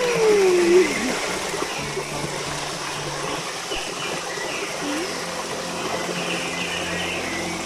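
Steady rush of a stream flowing over rocks. A single falling tone, the loudest thing, sounds in the first second, and faint short high chirps come later.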